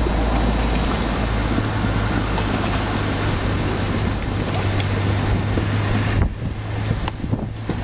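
Wind buffeting the microphone: a steady rumble and hiss, easing briefly about six seconds in and again near the end.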